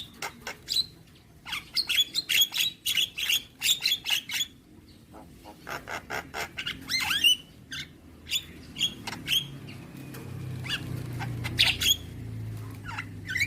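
Javan myna (jalak kebo) singing a varied song of short chirps, clicks, squawks and gliding whistles, delivered in quick runs with brief pauses between them.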